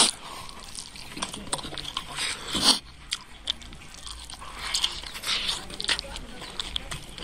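A man eating close to the microphone, chewing rice, pork and pea leaves with wet mouth clicks and smacks and slurping in strands of the greens, with one louder mouth sound a little before halfway.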